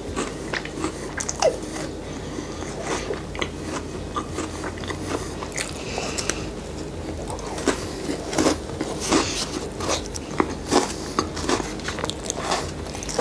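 Biting and chewing a crunchy stuffed cookies-and-cream chocolate bar close to the microphone. There are irregular crunches throughout, thickest about two-thirds of the way in.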